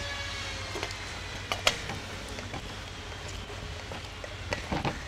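Quiet background: a low steady hum with a few faint clicks and knocks, twice in a short cluster.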